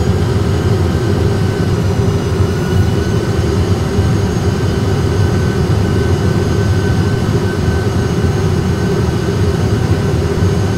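Steady low rumble of engine and airflow noise in an Airbus A320 cockpit on final approach, with faint steady high whines above it.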